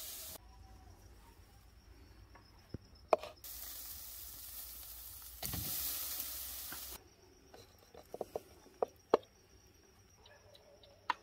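Marinated meat sizzling in a wire grill basket over charcoal. The sizzle comes in two stretches that start and stop abruptly, followed by a few sharp clicks and taps.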